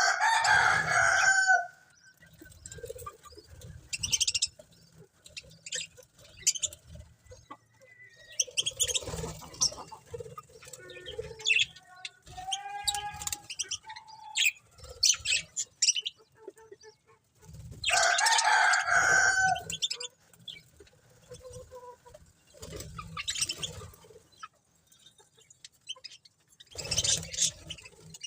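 Pet budgerigars chirping and chattering in irregular bursts, with two loud spells of squawking, one at the start and one about two-thirds of the way through.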